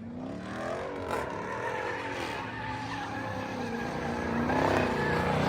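Car engine revving up over the first second, then held at high revs while its tyres spin and squeal, growing louder near the end: a burnout or slide.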